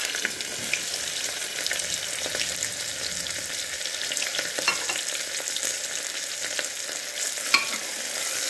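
Freshly added sliced onions sizzling in hot oil in a pressure cooker, a steady frying hiss with scattered small crackles. Near the end a metal spoon starts stirring them, with one sharp click.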